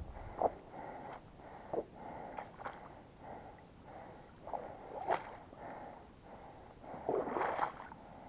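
A person trudging through a soggy bog, with irregular squelching steps in wet ground and heavy breathing, and a louder spell of squelching near the end.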